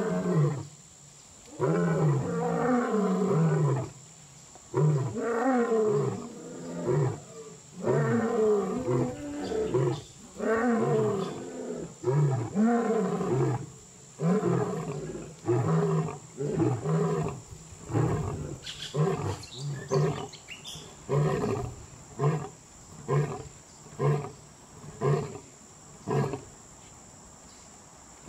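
Lion roaring in a long bout: a series of long, full roars through the first half, then a run of shorter grunting roars about one a second that carry on to the end.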